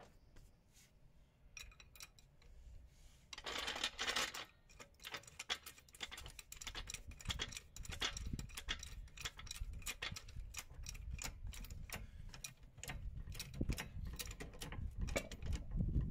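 Light metallic clicks and clinks from small metal parts being handled, with a short scraping rush about four seconds in and the clicking growing denser after it.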